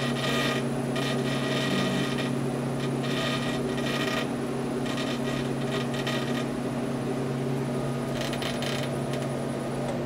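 Delta 16.5-inch drill press running in its low belt range and slowing as its variable frequency drive is turned down. Under a steady motor hum, the drive belt makes a creaking noise in repeated bursts; the owner isn't sure what it is and thinks it might wear itself out.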